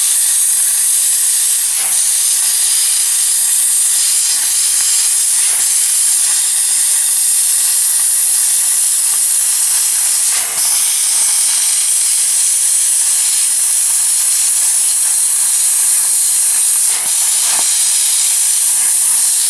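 Hypertherm Powermax45 plasma cutter torch cutting through 3/8-inch steel: a loud, steady hiss of the plasma arc and its compressed air, with an occasional faint crackle.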